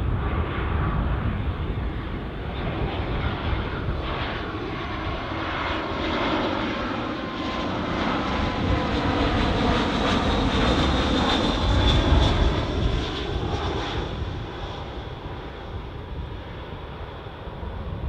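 Twin jet engines of an Airbus A320-200 airliner on landing approach, gear down, passing low overhead. A steady jet roar swells to its loudest about ten to twelve seconds in, with a sweeping, phasing hiss and a high whine as it goes over, then fades as the plane moves away.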